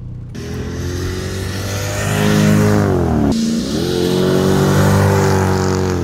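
Naturally aspirated 5.4-litre V8 of a Mercedes-Benz W210 E55 AMG accelerating hard, heard from inside the cabin. The revs climb, drop sharply with an upshift a little over three seconds in, then climb again. The engine is pulling cleanly, its injector-seal misfire cured.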